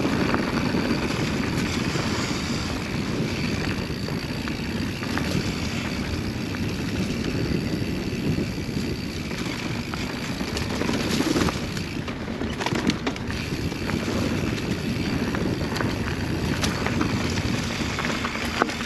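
Mountain bike descending a fast dirt singletrack: knobby tyres rolling over dirt and pine needles with a steady rush, and the bike rattling and knocking over bumps, with wind noise on the microphone.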